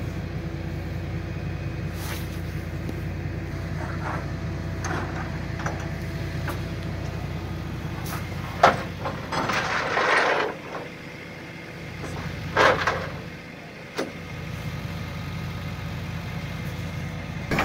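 Heavy flatbed tow truck's engine idling with a steady low rumble. About halfway through come two loud bursts of hissing and a few sharp metallic clacks.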